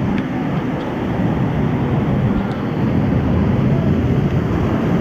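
Steady rush of water from artificial waterfalls pouring into a water-park pool, heaviest in the low end.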